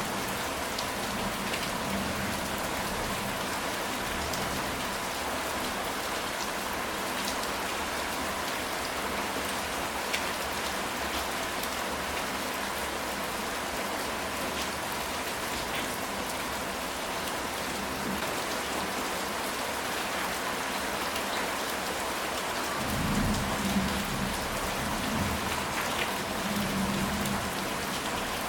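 Steady rain falling on a ceramic tile roof, with scattered distinct drops. A low rumble of thunder rolls in near the end.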